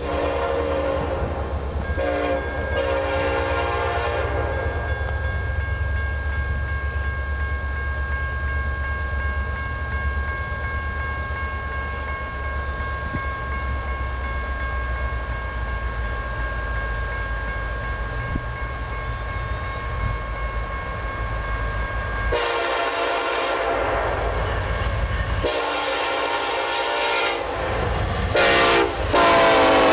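Air horn of an approaching BNSF EMD SD70ACe diesel locomotive: two distant blasts at first, then a steady low rumble of the locomotives as the train comes closer. Near the end it sounds the grade-crossing signal, long, long, short, long, loud and close.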